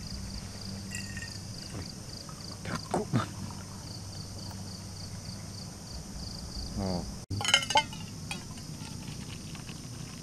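Insects buzzing steadily in the background, a high drone that pulses softly. There are brief voice-like sounds about three seconds in and near seven seconds, and a few quick clicks just after the second.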